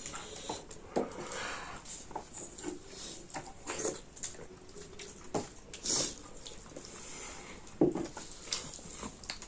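People eating a meal of curry, rice and chips: irregular wet chewing and smacking clicks, with two brief hissing sounds about four and six seconds in.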